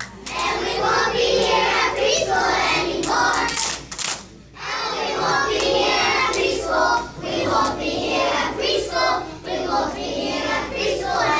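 A group of young children singing a song together, with a brief break about four seconds in.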